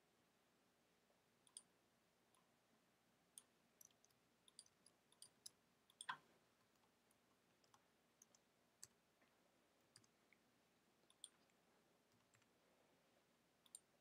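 Faint computer keyboard typing and mouse clicks: short, irregular clicks, the loudest about six seconds in.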